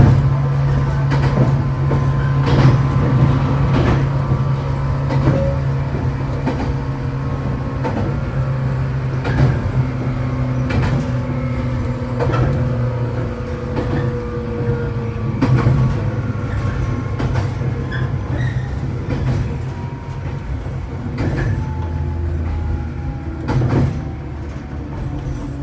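Running noise inside a 115 series electric train: wheels clicking over rail joints every second or two over a steady low hum, with a traction-motor whine slowly falling in pitch as the train slows toward a station.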